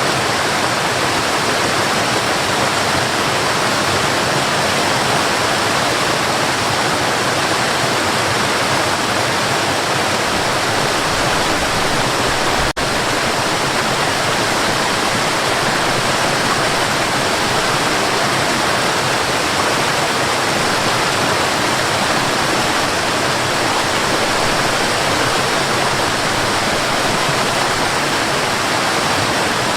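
Mountain river running: a steady, even rush of flowing water, with one split-second dip about halfway through.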